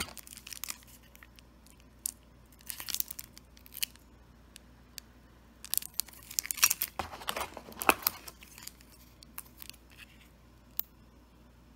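Clear plastic sleeves around metal seed-storage plates crinkling as the plates are handled and lifted out of their box, in three bursts of rustling with a few light clicks between them.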